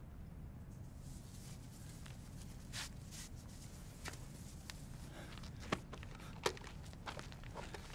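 Footsteps, a scattering of soft irregular steps with two sharper ones a little past halfway, over a steady low background hum.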